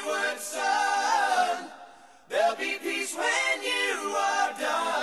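Male rock vocals in close multi-part harmony, sung a cappella. One phrase ends about two seconds in, and after a short pause the next phrase begins.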